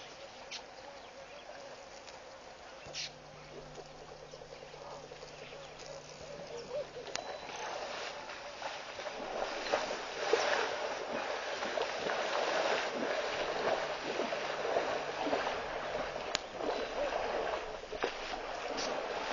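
Water splashing and sloshing as an African elephant wades through a shallow waterhole, starting about eight seconds in and growing louder, irregular and uneven. Before that there is only a faint background with a few light clicks.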